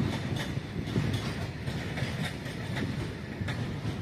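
Loaded flat wagons of a goods train rolling past: a steady low rumble of steel wheels on rail, with repeated clicks and clatter as the wheels pass over rail joints.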